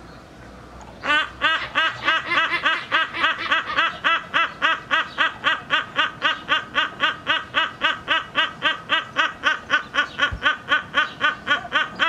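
Silvery-cheeked hornbill calling: a long, rhythmic series of loud, nasal, laugh-like notes at about four a second, starting about a second in.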